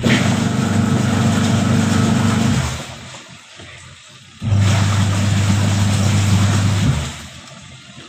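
Whirlpool Magic Clean top-loading washing machine's wash motor running the pulsator in on-off bursts: a humming run of about two and a half seconds, a pause of about two seconds, then a second run that hums lower than the first. This is the wash agitation cycle; the owner has said the motor makes a noise on one side.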